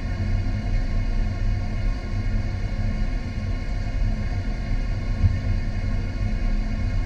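A steady low rumble with a faint even hum running under it, unchanging throughout.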